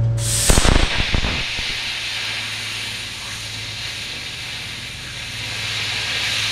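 YesWelder Firstess MP200 plasma cutter firing its arc with a sudden crackle, then a steady high hiss of the arc and compressed air as the torch is dragged through 3/16-inch steel diamond plate.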